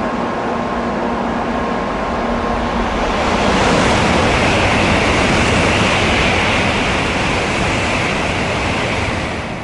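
Shinkansen bullet train passing through the station at speed without stopping: a rushing noise that swells about three seconds in, stays loud for several seconds and dies away near the end.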